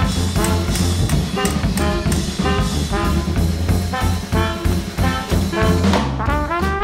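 Upbeat jazzy background music with brass and a steady, bouncing beat.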